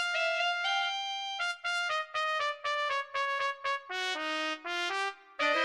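Trumpet playing a jazz-funk melody line: a few longer notes, then a run of short, detached notes that drop lower near the end.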